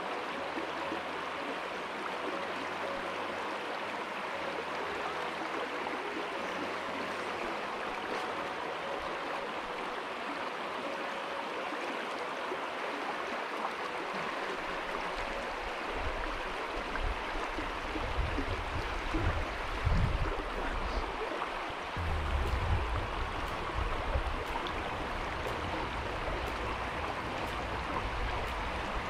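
Shallow river current rushing over stones, a steady hiss. From about halfway on, irregular low rumbles come and go beneath it, the strongest about twenty seconds in.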